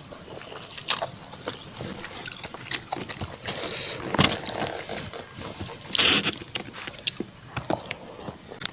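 Close-up eating sounds from a person eating spicy chicken curry: irregular chewing, lip smacks and wet mouth clicks, with a short breathy hiss about six seconds in. A steady high thin whine runs underneath.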